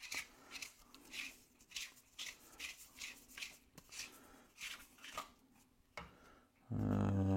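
Plastic mop-handle sections being twisted together, the threads scraping in a string of short rasps about every half second to second as they fail to catch. Near the end a loud low hum lasts about a second.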